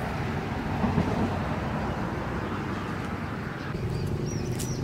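Steady outdoor background rumble with a low hum, like a running engine or passing traffic, and a few short high chirps near the end.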